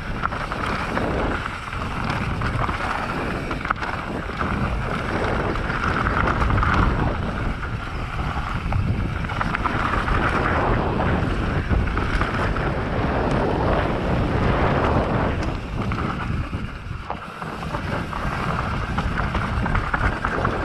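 Wind rushing over a GoPro microphone at speed, with the rumble and rattle of a mountain bike's tyres and frame over a rough, rooty dirt descent, and scattered sharp clacks from hits.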